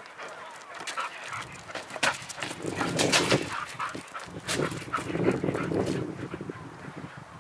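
Two bull terriers barking and yelping in play as they chase and push a large inflatable ball. Sharp slaps and scrabbles come from the ball and their paws on the paving, busiest in the middle.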